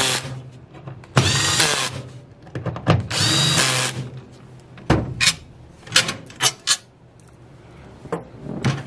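Cordless drill/driver running in two short bursts, driving screws down into a transmission valve body's hold-down bracket, followed by a series of sharp clicks and taps.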